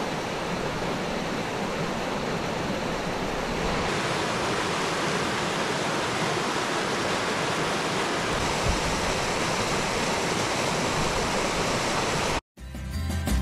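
Steady rushing noise that cuts off abruptly near the end.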